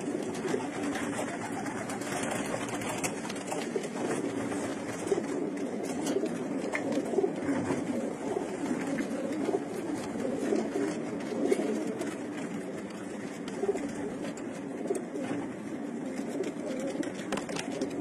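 Domestic pigeons cooing: a steady, overlapping run of low coos that never stops for long.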